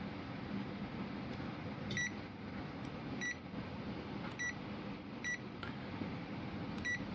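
Key beeps of a ZOYI ZT-R02 thermal imaging multimeter as its buttons are pressed to cycle through the colour palettes: five short, high beeps at uneven intervals of about a second. A steady low hum runs underneath.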